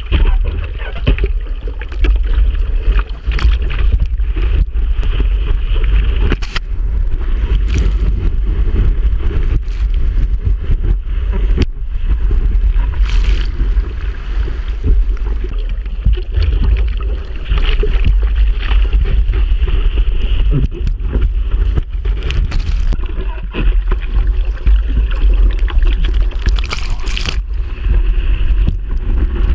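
Seawater splashing and rushing against a surfboard and its board-mounted camera while the surfer paddles through chop and whitewash, with a heavy rumble of water and wind noise on the microphone and many sharp splashes.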